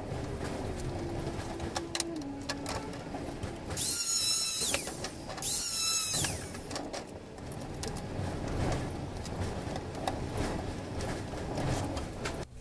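Handheld angle grinder cutting a machimbre wall panel in two short runs, each about a second long, about four and five and a half seconds in. Each run is a high whine that rises as the disc spins up and drops as it stops. Knocks and scraping from handling the panel come between the runs.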